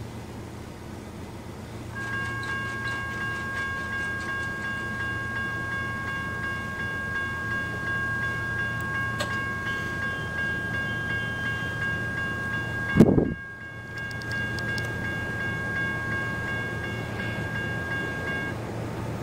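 Railroad crossing bell ringing steadily while the crossing lights flash and the gate arms lower, warning of an approaching train. It starts about two seconds in and stops near the end once the gates are down. A single loud thump cuts through about two-thirds of the way in, over a low steady rumble.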